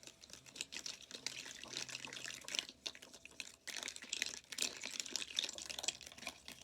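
Wet slime being stirred and mixed, a dense run of quick squishy clicks and smacks with short breaks in between.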